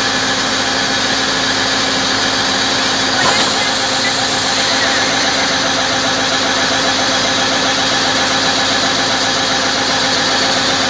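Water-well drilling rig's engine running steadily at constant speed, with a little more hiss from about three seconds in.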